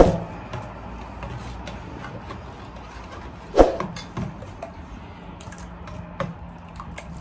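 A metal ladle stirring a liquid dressing in a stainless steel bowl, knocking sharply against the bowl at the start and more loudly about three and a half seconds in, with lighter clinks between. A low steady hum runs underneath.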